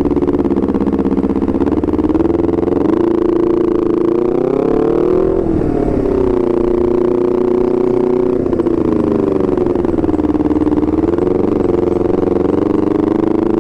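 Honda CBR250RR motorcycle engine running through an R9 GP racing exhaust while riding. The engine note climbs for a couple of seconds, drops sharply about five and a half seconds in, then holds fairly steady, with a smaller dip and rise near the end.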